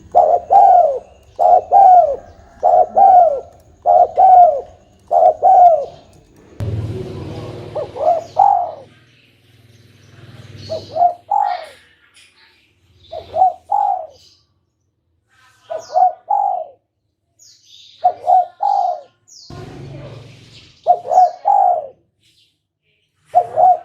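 Spotted dove cooing over and over, its short coo phrases coming in quick succession at first and then spaced a couple of seconds apart, as in a trapper's lure call. Faint high chirps of smaller birds sound in between, with a brief rushing noise twice.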